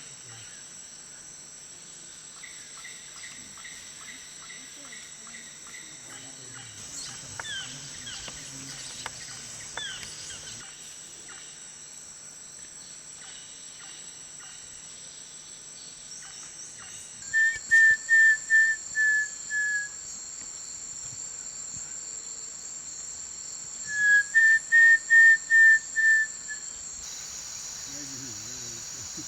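Steady high-pitched insect chorus of crickets or cicadas throughout. A bird whistles two loud runs of about seven or eight even notes, the first just past the middle and the second a few seconds later. A fainter run of similar notes sounds early on.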